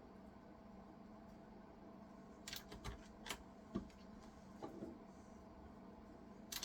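Faint steady hum, then from about two and a half seconds in a handful of light, sharp plastic clicks: keyboard keycaps being handled and pressed back onto the keyboard.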